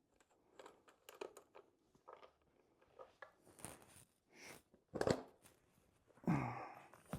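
A plastic airbox being forced against the carburetor intake boots of a Honda CB750, making irregular short scrapes, creaks and knocks because it won't seat. A short grunt of effort comes about six seconds in.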